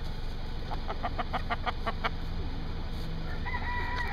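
Chickens clucking, a quick run of short clucks about a second in, then a rooster starting to crow near the end, a long held note.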